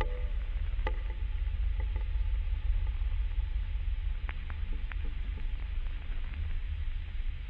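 Low steady rumble with a few faint, scattered ticks.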